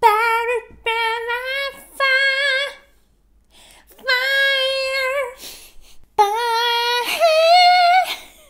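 A woman singing without accompaniment: a string of long held notes with short breaks between them, the last few held notes pitched higher.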